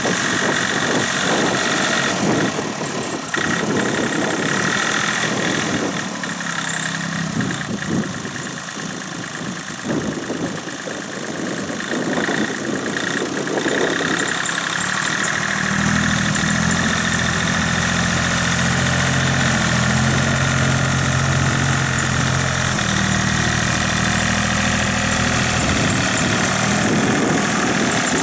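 ISEKI TU-155 compact tractor's diesel engine running steadily as its front blade pushes soil. About halfway through, the engine's low, even note becomes stronger and fuller as the tractor draws near.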